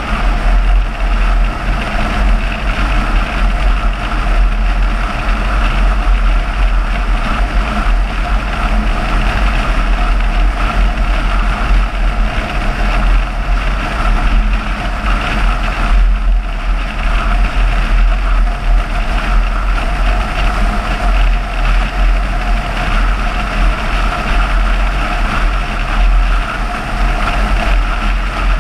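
Car driving at a steady speed: continuous engine and road noise with a strong deep rumble underneath.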